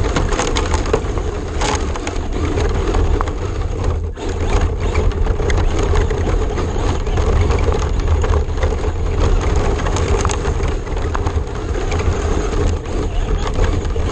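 Onboard sound of a Traxxas RC car driving over gravel: a steady rumble of tyres on loose stones with wind on the microphone, sprinkled with many small clicks of stones.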